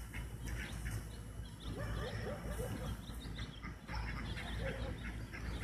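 Outdoor ambience of animal calls: two runs of short, quickly repeated rising-and-falling calls, with scattered small bird chirps and a steady low rumble.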